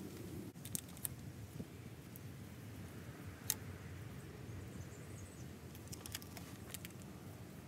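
Fingers rubbing and pressing a vinyl decal onto a metal locomotive tank, with a few scattered light clicks and crackles from the clear transfer tape, the sharpest about three and a half seconds in. Faint steady background noise underneath.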